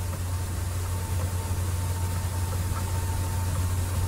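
Steady low electrical or fan hum with hiss and a faint high whine. It stays unchanged throughout, with no distinct events.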